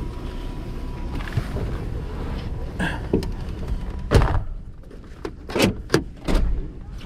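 Chevrolet truck's driver door pulled shut from inside with one solid thunk about four seconds in, after which the outdoor noise drops away to a muffled cab. A few lighter clicks and knocks follow in the cab.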